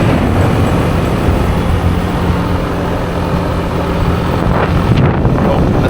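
Motorbike engine running steadily while riding, with wind noise on the microphone; a steady engine hum stands out through the middle.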